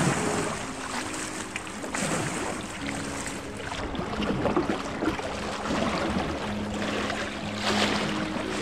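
Small waves from Lake Ontario lapping and splashing against shoreline rocks, with several swells of splashing. Soft sustained music notes underneath.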